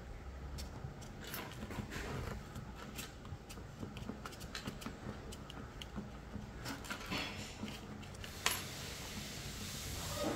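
Small parts of a solar car kit being handled and fitted together: irregular light clicks and rustling, with a sharper click about eight and a half seconds in.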